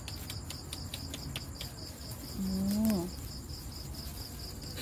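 Crickets chirping in a steady high pulsing rhythm, about five pulses a second, with a short low meow from a cat, rising at its end, about two and a half seconds in. A run of faint clicks sounds in the first second and a half.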